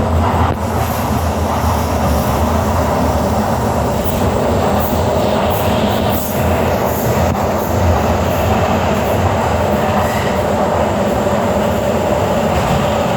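Docklands Light Railway train running along the line, heard from inside the car: a steady rumble of wheels on rail with a faint whine in the second half.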